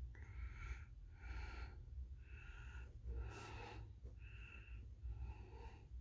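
A Zig Clean Color Dot pen's 0.5 mm fine tip scraping across card in about six short writing strokes, with one sharper scratch a little past halfway. The tip grates and scrapes as it writes.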